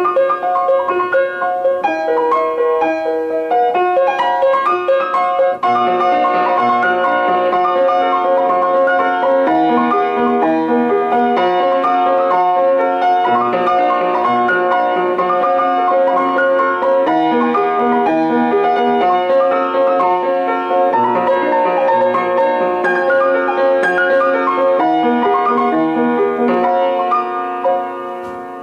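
Piano music: a melody of held notes over a moving accompaniment, fading out near the end.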